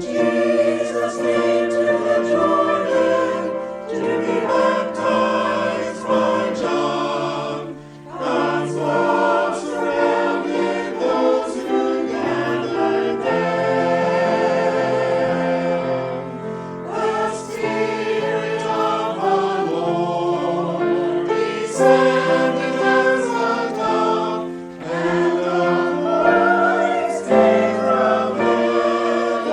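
A choir singing a hymn, held chords in phrases that pause briefly about eight seconds in and again near the end.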